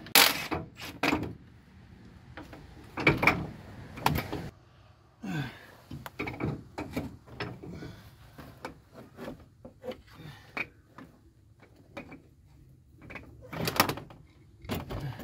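Wrench working the last AC compressor bracket bolts in a Nissan D21 Hardbody engine bay: a string of metal clanks and knocks, loudest right at the start, around three and four seconds in, and near the end, with smaller clicks between them.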